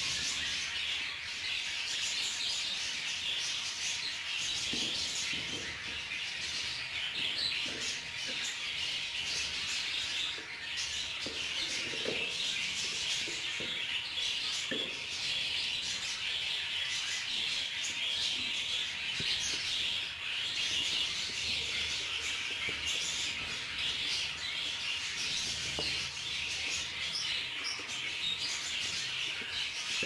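Many budgerigars chattering at once: a dense, steady mass of overlapping chirps.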